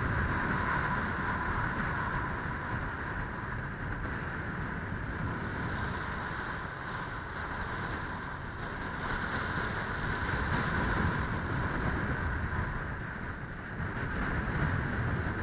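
Wind buffeting the camera's microphone on an exposed ridge: a steady, rumbling rush with irregular gusty flutter and a constant hiss above it.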